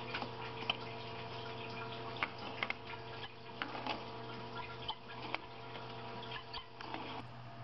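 Scattered light metallic clicks and taps as large tongue-and-groove pliers grip and turn the aluminum end cap onto a Reznor waste oil heater's oil preheater cylinder held in a vise, over a steady hum.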